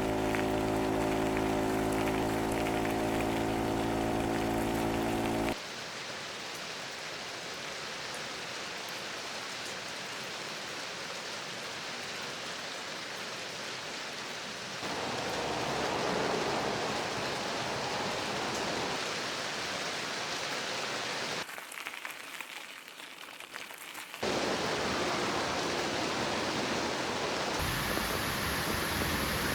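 A steady vehicle engine hum for the first five seconds or so, cutting to a steady hiss of monsoon rain. The rain gets louder and fuller about fifteen seconds in, dips quieter between about 21 and 24 seconds, then comes back.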